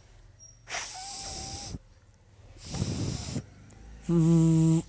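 A man articulating the voiceless labiodental fricative /f/ in isolation: two separate breathy hisses of air forced between upper teeth and lower lip. Near the end comes a short steady buzz with hiss on top, the voiced counterpart /v/.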